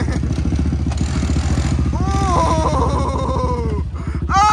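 ATV engine running under throttle with a rapid low pulsing as the quad rears up into a wheelie. From about two seconds in, a person yells in a high, falling cry, and yells again near the end.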